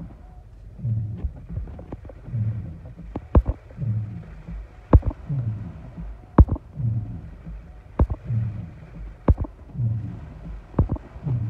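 Car windshield wipers running, heard from inside the cabin: a low rhythmic thump with each sweep, about every three quarters of a second, and a sharp click about every second and a half, over a faint steady hiss of rain on the glass.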